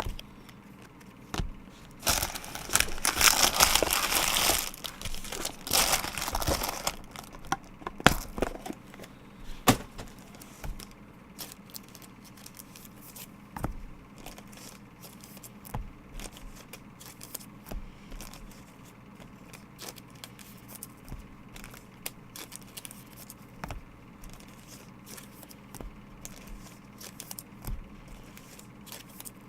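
Trading card pack wrapper being torn open and crinkled, in two loud spells of a few seconds, followed by faint scattered clicks and rustles of the cards being handled.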